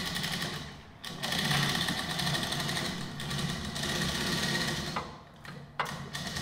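Hand chain hoist (chain fall) lowering a heavy truck radiator, its chain running through the hoist with a fast, steady rattle. The rattle breaks off briefly about a second in and again near five seconds.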